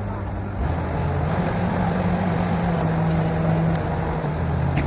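Borewell drilling rig's engine running steadily, picking up speed and load about half a second in and easing back just before the end.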